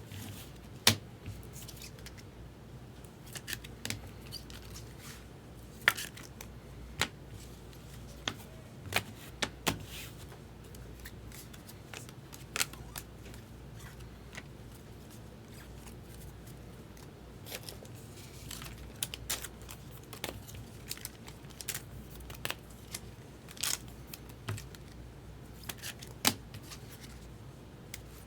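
Trading cards being handled and sorted: irregular sharp clicks and taps of card stock, with soft sliding between, over a low steady room hum.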